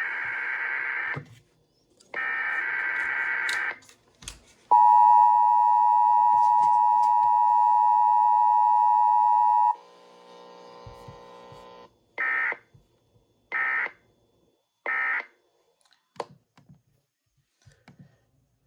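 Emergency Alert System broadcast signals: two warbling SAME data header bursts, then the loud two-tone EAS attention signal held steady for about five seconds. A quieter buzzy passage of about two seconds follows, then three short end-of-message data bursts in quick succession.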